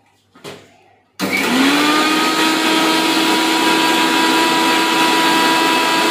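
Electric mixer grinder switched on about a second in, grinding fresh betel leaves with cream, sugar and rose water into a paste. Its motor whine rises quickly, then holds steady under loud grinding noise. A short knock comes just before it starts.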